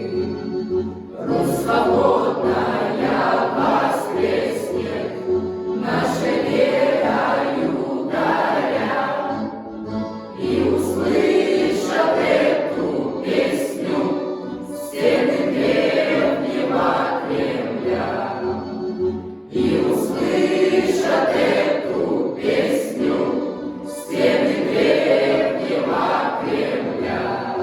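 A choir singing with instrumental backing and a steady beat.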